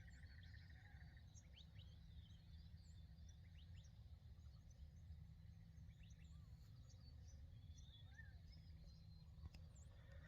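Faint dawn chorus of several small desert birds: scattered short chirps and quick rising and falling calls, over a steady low hum.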